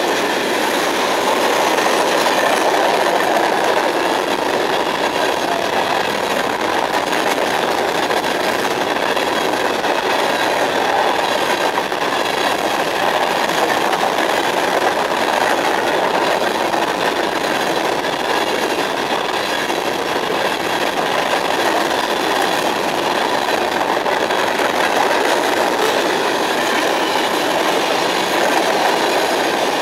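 Freight cars of a mixed train (gondolas, covered hoppers and tank cars) rolling past at speed: a loud, steady rush of steel wheels on the rails.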